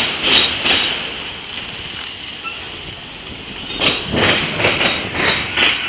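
Freight train of autorack cars rolling past, its wheels clattering over the rails in a quick, uneven rhythm. The clatter eases for a couple of seconds in the middle and comes back louder about four seconds in.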